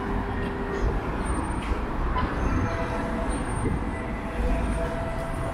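Subway train running: a steady low rumble with faint whining tones, one of which sets in about halfway through.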